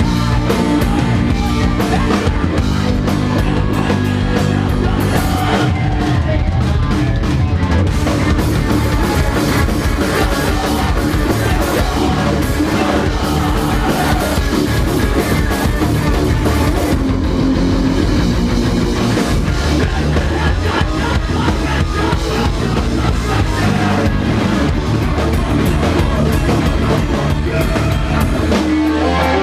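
Rock band playing live: electric guitar, bass and drum kit at full volume without a break.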